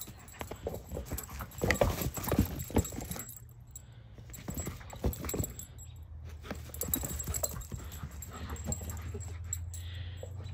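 Shepherd dog playing with a rubber ball: a run of quick knocks and scuffs in the first three seconds, then the dog panting.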